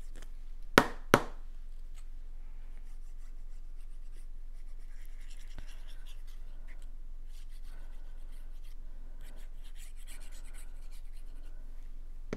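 Two sharp clicks in quick succession about a second in, then faint rubbing and scratching of cardstock being handled while liquid glue is dabbed onto a paper goalpost piece from a small bottle.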